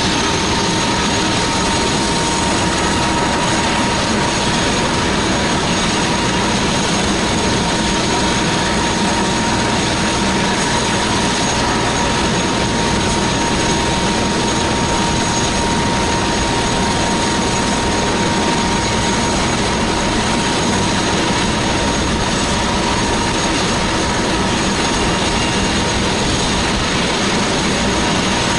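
Airbus H145 rescue helicopter running steadily on the ground, its twin turboshaft engines and rotors giving a loud, even noise with a constant whine.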